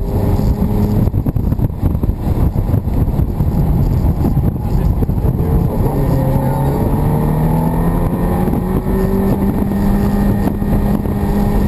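Ferrari F430's V8 engine heard from inside the cabin under road and wind rumble, pulling steadily at moderate revs. From about halfway its pitch climbs slowly and evenly as the car accelerates in gear.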